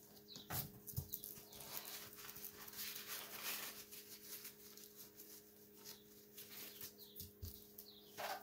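Faint rustling of a paper towel with light taps and knocks as a paintbrush is worked and wiped, over a steady low hum.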